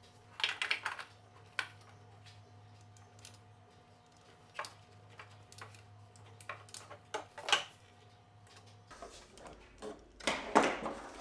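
Scattered clicks and knocks of hard plastic parts being handled and pressed together as a table tennis robot's black plastic ball-feed housing is fitted back over its new motor. There is a quick run of clicks at the start and a busier patch near the end.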